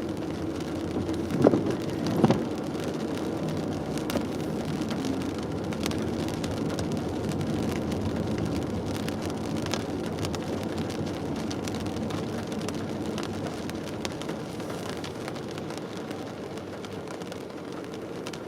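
Car driving in rain, heard from inside the cabin: a steady hiss of tyres and road noise, with scattered raindrops ticking on the car. Two louder knocks come about one and a half and two seconds in.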